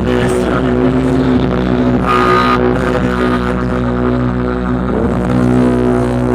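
Loud music played through a sound system, with steady droning tones; a brief higher note sounds about two seconds in.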